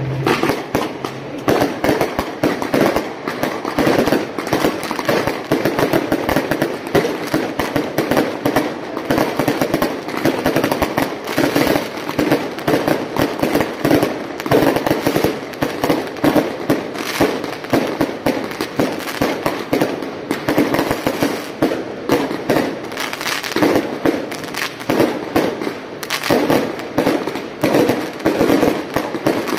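Firecrackers going off in a dense, continuous barrage of rapid cracks, with louder pops every second or so.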